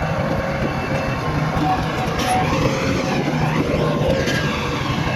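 Bulldozer's diesel engine running steadily, with a faint whine that rises and falls around the middle.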